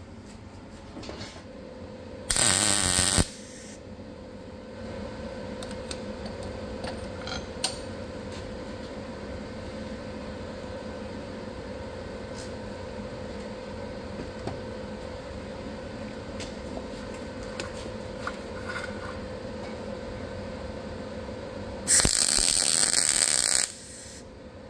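MIG welder arc crackling in two bursts: a short tack about two seconds in and a longer weld of about two seconds near the end, welding up a broken steel tractor throttle linkage part. A steady hum runs between the bursts.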